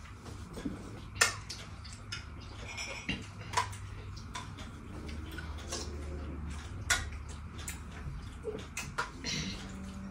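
Spoons clinking and scraping against bowls as people eat, with a few sharp separate clinks spread through, over a faint steady low hum.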